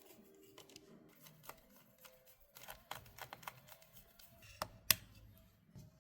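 Faint scattered clicks and ticks of a small screwdriver driving the logic-board screws back into a MacBook Pro's aluminium chassis, with one sharper click a little before five seconds in.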